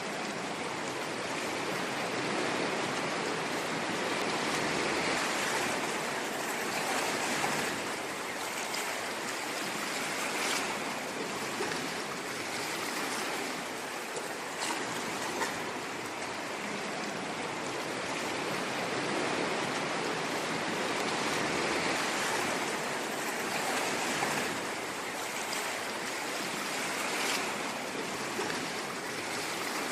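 Ocean waves washing ashore: a continuous rushing surf that swells and eases every several seconds.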